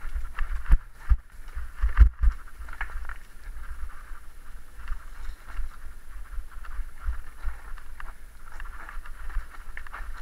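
Mountain bike riding over a rough dirt forest trail, heard from a camera on the bike or rider: steady low rumble and rattle of tyres on dirt, with a few sharp knocks from bumps in the first couple of seconds.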